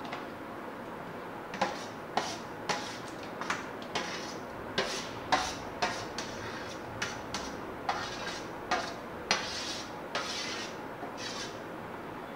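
Spoon scraping and knocking against a glass bowl, clearing grated sweet corn into a steel pot: a run of short clinks and scrapes, about two a second, starting about a second and a half in.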